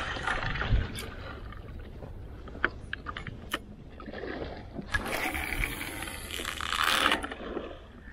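Wind and sea noise around a small inflatable boat, with a few sharp clicks, while a topwater lure is retrieved on a spinning outfit. A louder rush swells from about five seconds in and drops away just after seven.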